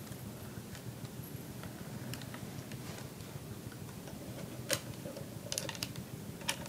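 A statue's decorative chain being wrapped around its base: faint, scattered clicks and light rattles of the links, with a few louder clinks in the second half.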